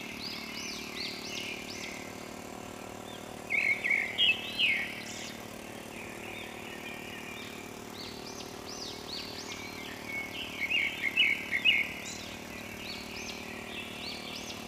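Birds chirping in quick repeated calls, with two louder bouts about four seconds and eleven seconds in, over a faint steady hum.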